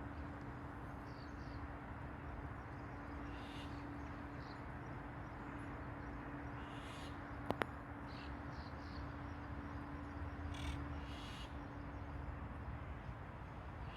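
Birds calling: a few short, harsh calls spaced several seconds apart, with fainter short chirps between them, over a steady low hum. A sharp double click sounds about halfway through.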